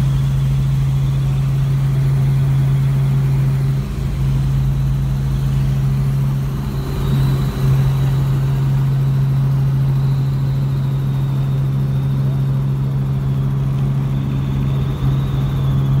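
Steady drone of a light aircraft's engine, heard from inside the cabin, with a faint high whine above it.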